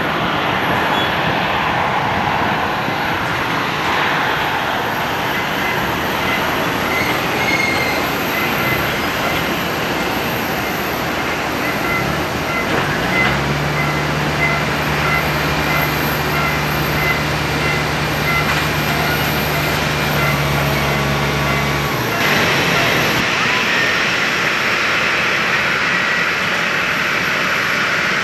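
Jet engines of a Skymark Airlines Boeing 737-800, its CFM56 turbofans running as it rolls out along the runway and taxis, a steady rush of noise. A steady low hum joins about 13 seconds in and cuts off about 22 seconds in.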